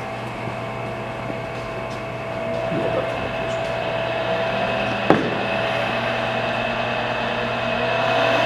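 1964 Monarch 10EE toolroom lathe running in back gear: a steady mechanical hum with a whine, getting louder about three seconds in, and a single sharp click about five seconds in.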